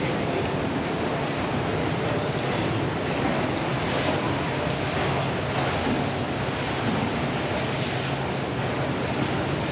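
Steady underwater rushing hiss of a swimming pool picked up by a submerged camera, with a low steady hum beneath it.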